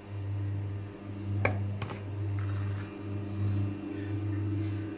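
Electric stand mixer running, its beater turning through cake batter as flour is mixed in; a low motor hum that swells and dips about once a second, with two sharp clicks about one and a half seconds in.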